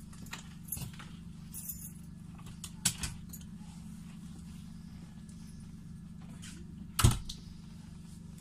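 Steady low hum inside a standing electric regional train's passenger car, with a few scattered clicks and one loud knock about seven seconds in.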